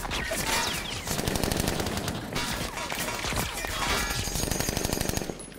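Rapid automatic rifle fire, dense overlapping shots. It stops sharply about five seconds in.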